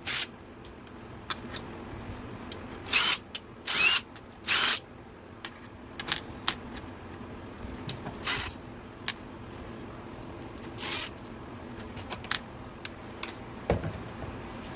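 Loose steel engine bolts clinking and clattering as they are handled and set down one by one, a dozen or so sharp separate clinks, a few with a brief metallic ring, over a low steady hum.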